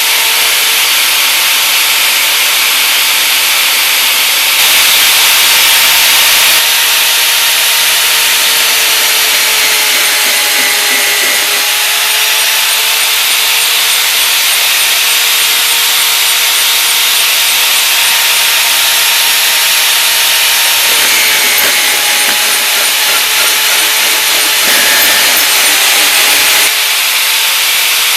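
Electromagnetic (magnetic-base) drill running steadily and cutting a hole through the metal tank wall, giving a constant motor whine over a rasping cutting noise. The whine sags briefly under load a few times.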